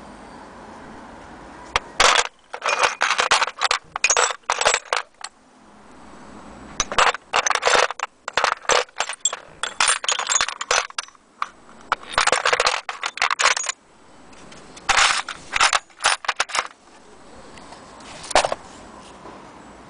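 Metal hand tools clinking and rattling against one another in a tool tray, in about five bursts of rapid clinks with short pauses between, ending with a single sharp clink near the end.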